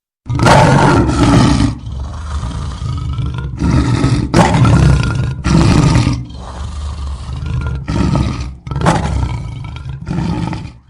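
Lion roaring: a bout of loud, deep roars, about six of them, with quieter stretches between. The sound starts and stops abruptly.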